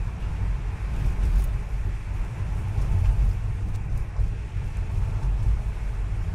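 Car driving, heard from inside the cabin: a steady, deep rumble of engine and road noise.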